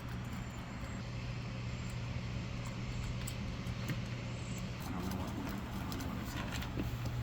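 A motor running with a steady low hum, with a few faint light clicks over it.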